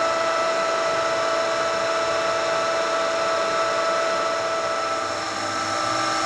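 Ooya RE2-1450D radial arm drill press spindle running without load at 975 RPM, a steady gear-driven whine with several high tones. About five seconds in the sound dips briefly and takes on a slightly lower note.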